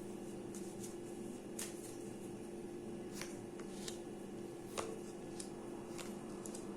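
A deck of fortune-telling cards being shuffled and handled by hand: scattered light card snaps and clicks, about eight of them, irregularly spaced. A steady low hum runs underneath.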